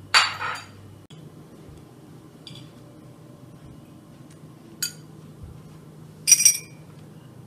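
Teaspoons and tableware clinking on a laid tea table: a clatter just after the start, a single sharp clink about five seconds in, and a ringing clink of glass or china about six and a half seconds in.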